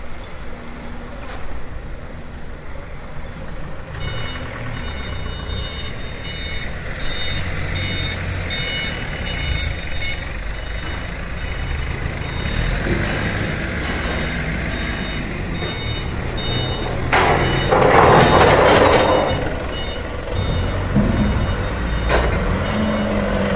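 Forklift engines running, with a repeating high reversing-alarm beep from about four seconds in to about sixteen seconds in. A loud noisy burst lasts about two seconds near the three-quarter mark.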